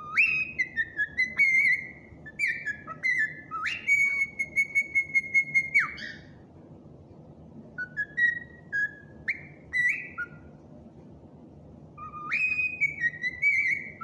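Cockatiel whistling a tune: a string of clear whistled notes that swoop up and step between pitches, with one long held note about four seconds in. The opening phrase comes again near the end.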